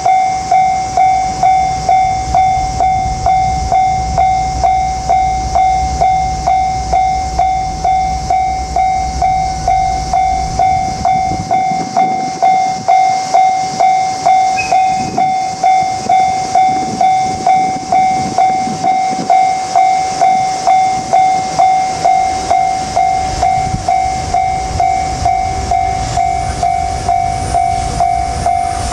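Japanese level-crossing warning bell sounding: a steady electronic ding repeating in a regular rhythm, well under a second apart. Under it, the low rumble of the passing freight train, weaker for several seconds around the middle.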